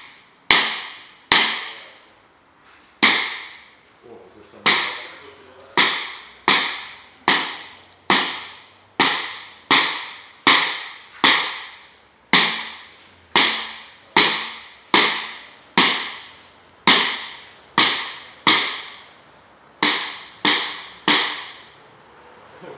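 A long series of sharp strikes, one or two a second with a short pause about two seconds in, each ringing briefly at the same few pitches before dying away.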